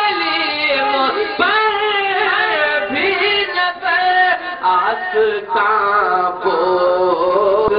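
Urdu devotional song: a voice sings long, drawn-out, wavering notes without clear words.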